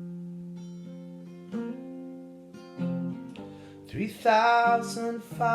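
Acoustic guitar chords strummed and left to ring, with a few new strokes, then a brief wordless sung note about four seconds in.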